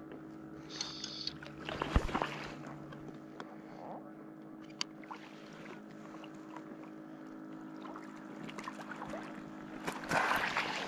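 Water lapping around a small boat, with a sharp knock about two seconds in and a burst of splashing near the end as a hooked trout is brought in. A faint steady hum runs underneath.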